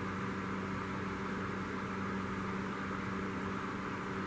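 Steady low machine hum with a constant tone and a hiss over it, unchanging throughout: room background noise from a running fan or appliance.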